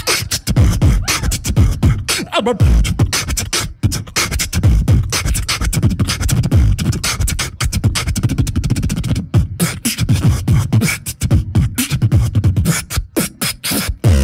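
Beatboxing into a handheld microphone: a continuous, fast beat of vocal kick drums, snares and sharp hi-hat clicks over heavy low bass.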